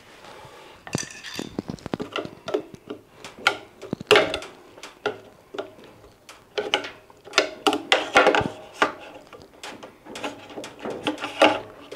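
Long screwdriver prising a washing machine's drum pulley off its shaft: irregular clicks, knocks and scrapes of the blade against the pulley and drum, the pulley stuck fast and very sticky to get off.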